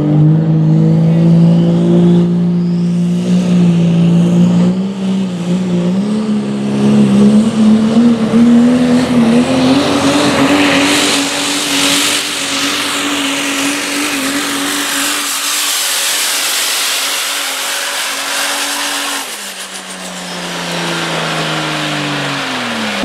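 Turbocharged diesel pulling truck at full throttle hauling a weight-transfer sled, its engine note climbing in pitch over the first ten seconds and then holding. About nineteen seconds in the revs drop, and near the end the engine falls away as the throttle comes off.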